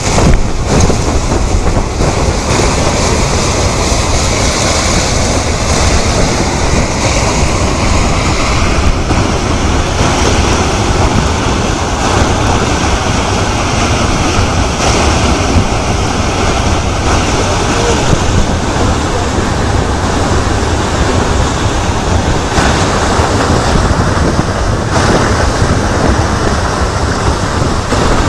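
Loud, steady rushing of fast-flowing river water, with wind buffeting the microphone.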